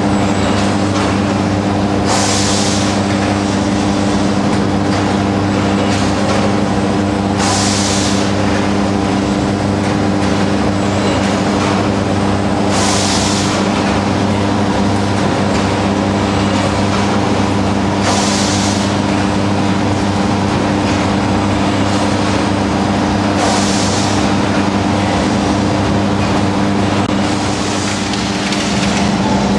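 Steady hum of fertiliser plant machinery running, with a short hiss about every five seconds, five times.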